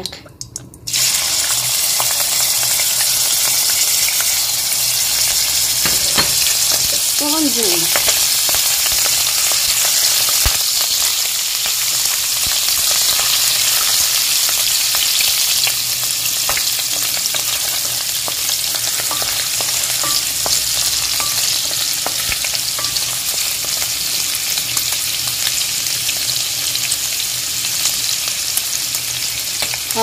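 Small shrimp sizzling in hot olive oil and butter in a stainless steel pan. The sizzle starts suddenly about a second in as the shrimp hit the hot fat and then runs on steadily, with scattered light taps of the wooden spoon stirring them.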